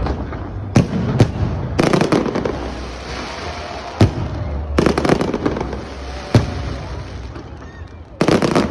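Aerial fireworks going off: separate loud bangs from bursting shells, with dense spells of rapid crackling, about two seconds in, around five seconds and again near the end, over a rolling rumble.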